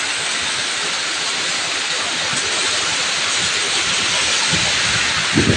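Heavy rain pouring down in a steady, dense hiss. A brief low thump sounds near the end.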